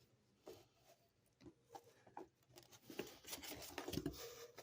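Faint handling of comic books and paper: soft rustling with scattered light taps and clicks, busiest in the second half.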